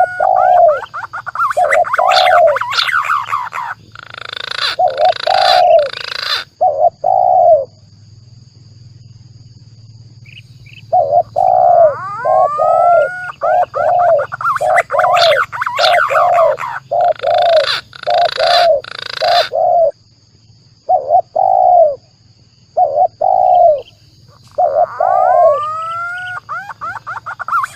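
Bird-lure recording of spotted dove (tekukur) coos mixed with green pigeon (punai) calls: rising whistled glides followed by runs of short, quick cooing notes, with harsh noisy patches among them. It comes in two bouts with a pause of a few seconds between them, and a third begins near the end.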